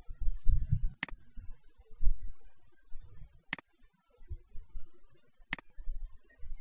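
Three sharp computer-mouse clicks, about two seconds apart, with low dull thumps in between.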